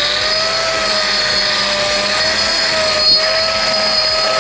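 Hand-held concrete grinder with a PKD (polycrystalline diamond) disc grinding a concrete slab, running steadily at full speed with a high whine that wavers slightly as the disc is pressed on, over a hiss of grinding and dust extraction.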